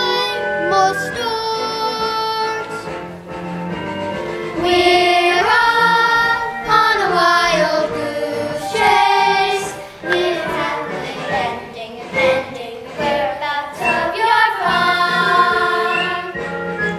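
Young voices singing a show tune over backing music, with several long held notes.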